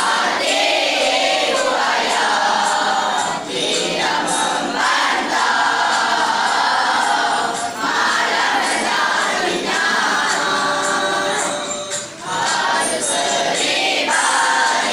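A large group of voices singing together over backing music.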